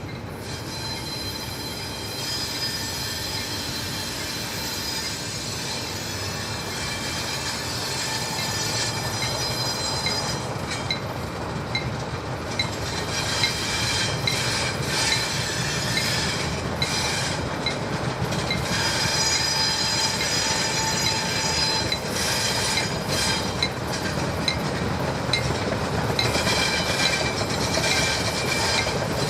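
Freight cars rolling slowly on track, steel wheels squealing against the rails with some clickety-clack over the joints, growing gradually louder.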